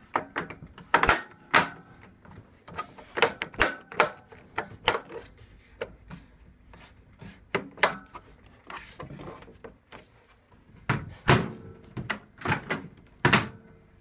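Plastic door trim of a Panasonic microwave being pressed back onto the door by hand: a run of sharp clicks and knocks at irregular intervals.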